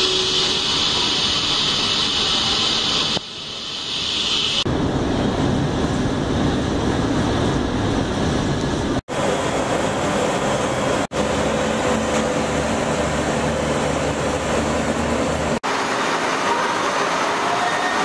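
Steady, loud industrial noise from the hot metal re-ladling bay of a steel plant, as molten iron is handled and a hot metal car is moved on rails. It is made of several joined clips that cut off abruptly about nine, eleven and fifteen seconds in.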